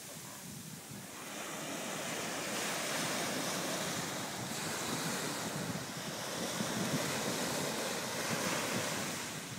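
Small sea waves breaking and washing up a sandy beach: a steady hiss of surf that swells louder about a second in and ebbs and rises again with each wave.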